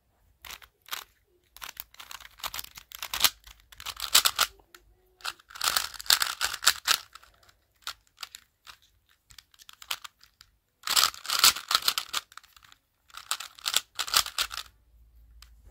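A plastic 3x3 smart speed cube being turned by hand in quick flurries of moves: rattling clicks of the layers snapping round, in several bursts with a longer pause in the middle.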